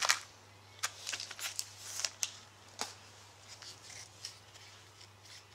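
A pack of trading cards being opened and the cards flicked through by hand: a run of short snaps, crinkles and card slides, busiest in the first three seconds and thinning out after.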